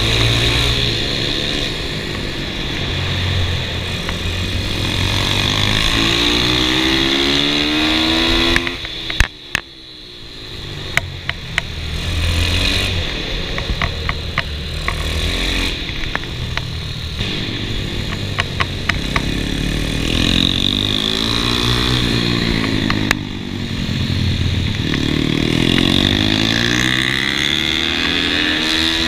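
Kawasaki KLX110 pit bike with a 143 cc big-bore kit, its single-cylinder four-stroke engine revving up and down through the corners of the lap. About nine seconds in the engine note drops briefly, with a few sharp clicks, before it picks up again.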